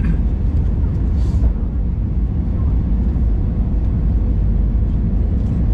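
Steady low rumble of a passenger jet airliner's engines and airflow, as heard inside the cabin, with a faint steady hum above it.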